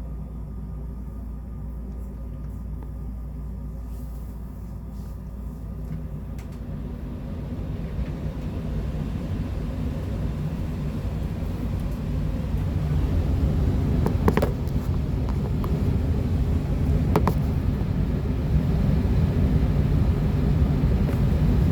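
Rheem furnace starting up in heat mode: a steady low hum swells over several seconds into a louder, broad rumble as the unit comes up to full running. Two sharp clicks come a few seconds apart near the middle.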